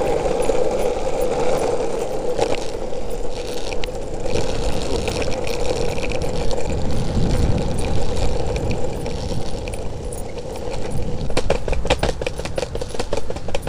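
Longboard wheels rolling fast over asphalt, a steady rumble with a constant hum. From about eleven seconds in, a quick run of clicks and knocks comes in over it.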